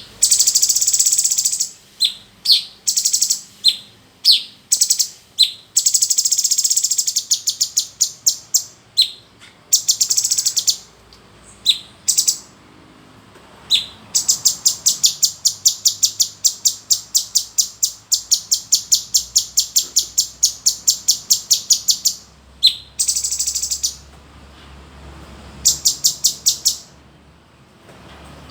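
A male cucak cungkok in full song, giving loud, sharp, high chattering notes. Separate short phrases alternate with long rapid runs of about five notes a second, with brief pauses between phrases.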